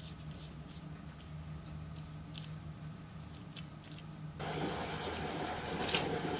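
Soft wet dabs and strokes of a silicone basting brush spreading barbecue sauce over pork ribs, with faint small clicks over a low steady hum. About four seconds in, a louder steady rushing noise comes in and stays.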